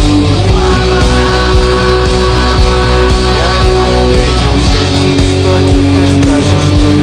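Rock music played on guitar: a lead guitar holds long, sliding melody notes over a heavy, steady bass backing.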